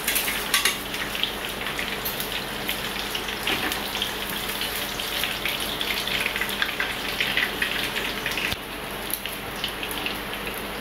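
Fish frying in a pan of hot oil: a steady crackling sizzle of many small pops, easing off a little near the end.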